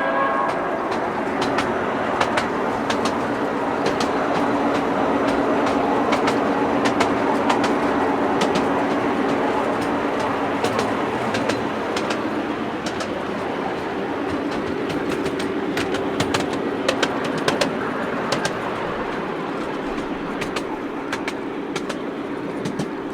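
Miniature railway train running along its track, with a steady motor drone and sharp clicks from the wheels over the rail joints throughout.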